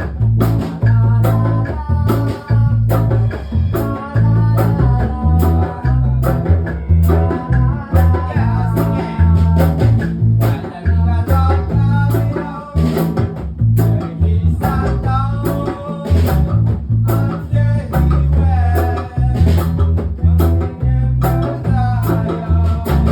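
A live band playing a reggae song: an electric guitar, a strong bass line, a drum kit keeping an even beat, and a singer's voice.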